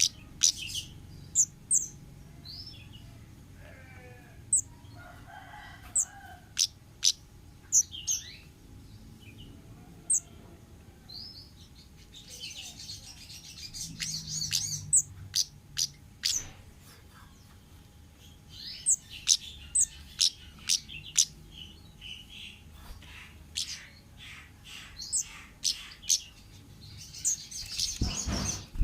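Orange-headed thrush (kemade) calling in the wild: a string of short, sharp, high-pitched calls, with denser runs of song about halfway through and near the end. A brief low thud comes near the end.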